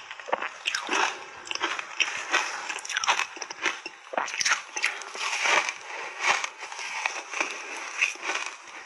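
Mouth crunching and chewing big bites of shaved ice coated in matcha powder: a fast, irregular run of crisp crunches.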